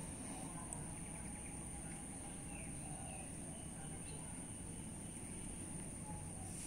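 Outdoor ambience: a steady low rumble with a continuous high-pitched whine and a few faint, short bird-like chirps.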